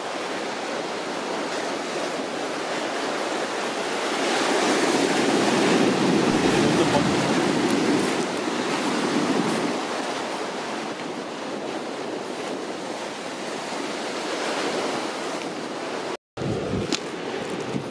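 Surf washing onto the beach, swelling louder for several seconds in the middle, with wind on the microphone. The sound breaks off for a moment near the end.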